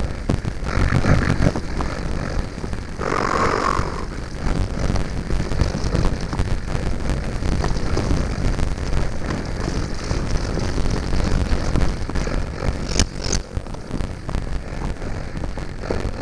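Mountain bike rolling over a rough forest trail: a steady low rumble and rattle with wind buffeting the microphone, and one sharp click late on. It is recorded on a GoPro Hero5 Black whose audio the owner considers faulty.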